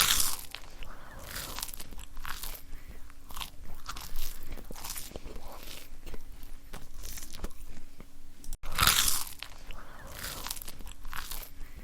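Water spray from a hose or pressure washer spattering against the muddy Suzuki Jimny in uneven hissing bursts as the jet moves over the body, over a faint steady hum.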